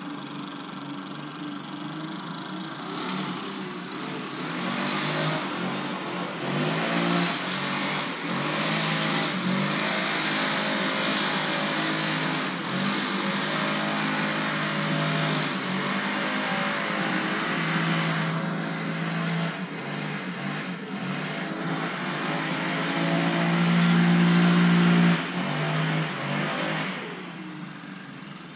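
Leaf blower engine running under throttle with a rush of air, its pitch and loudness rising and falling as it is worked. It is loudest shortly before the end, then drops off suddenly and fades.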